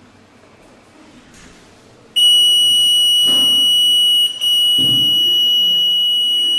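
Electronic buzzer in the control panel of a Nowatech ZHCN-315CNC butt-fusion welder's hydraulic power unit giving a long, steady, high-pitched beep as the unit starts up. It begins about two seconds in and has a brief break near the middle.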